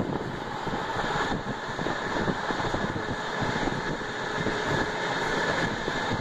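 Running noise of an LHB passenger coach travelling at speed, heard from on board: a steady rumble and clatter of wheels on the rails with rushing air. A faint steady hum sounds for a few seconds in the middle.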